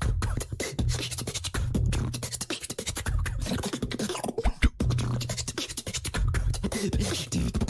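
Fast, flowy solo beatboxing: rapid percussive clicks and hits over a deep, held bass that breaks off and comes back every second or two.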